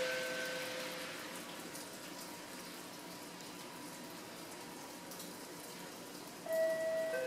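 A two-note descending chime, a higher note then a lower one. The lower note fades out in the first second, and the chime sounds again near the end. In between there is a steady hiss of platform background noise.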